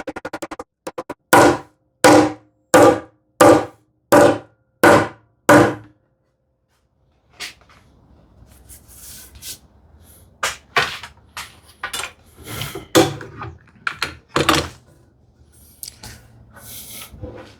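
Knocks on wood as a hand-cut dovetail joint is worked together: seven firm knocks about two-thirds of a second apart, each with a short ring. After a brief silence come lighter, irregular knocks and the rustle of wood being handled.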